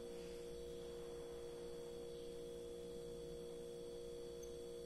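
A steady background hum made of a few unchanging tones, with nothing else heard.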